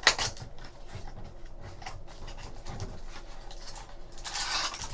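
Trading cards and card-pack wrappers being handled on a table: light taps and soft rustles, with a longer, denser rustle near the end as a pack is handled.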